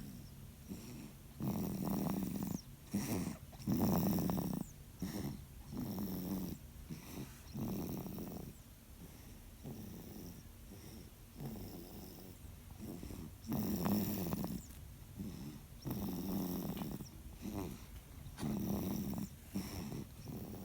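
Baby snoring really loud: rough, rasping snores on each breath, coming every second or two with uneven strength.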